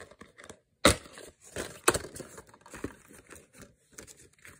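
A plastic DVD case being opened and handled: two sharp snaps, the louder just under a second in and another about a second later, amid lighter clicks and rustling of the case and its printed insert.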